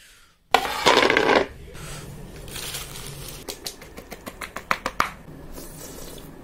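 Crinkling and crackling handling noises. There is a loud burst about half a second in lasting about a second, followed by a run of sharp clicks and crackles.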